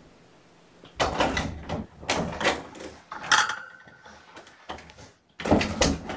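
A run of sharp knocks and clatters from things being handled close by, starting about a second in, with a short squeak about three and a half seconds in and another loud clatter near the end.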